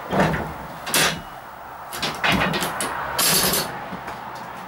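Signal box lever frame being worked: a string of heavy metal clunks and clanks as levers are released and pulled over, setting the road for the locomotive.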